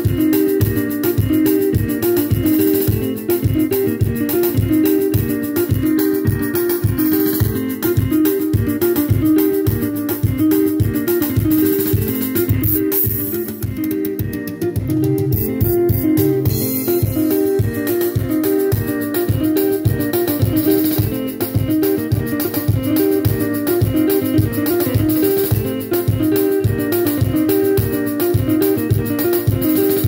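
Yamaha PSR-S770 arranger keyboard playing a rhythm style (auto-accompaniment): quick, repeating picked guitar lines over bass and a drum kit, in a steady dance groove with no break.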